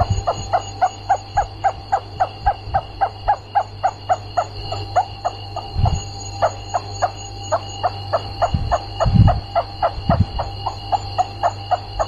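Rats squeaking in a fast, even series of short squeaks, about three or four a second, over a steady electrical hum, with a few dull thumps.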